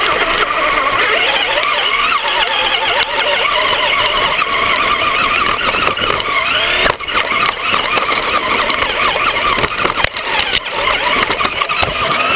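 Electric Traxxas RC car's motor and drivetrain whining, the pitch rising and falling with the throttle, over tyre and wind noise heard from a camera riding on the car. A few sharp knocks of bumps or landings come in the second half.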